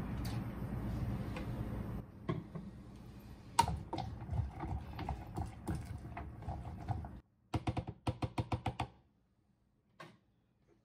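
Chickpea liquid poured from a bowl into a plastic blender jar, followed by clicks and knocks as the jar and its lid are handled, with a quick run of clicks about eight seconds in. The blender motor is not running.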